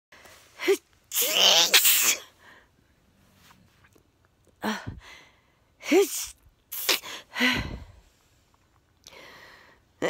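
A woman sneezing several times in a row, each sneeze a sharp burst with a voiced cry in it; the first, about a second in, is the longest and loudest, and four shorter ones follow close together a few seconds later.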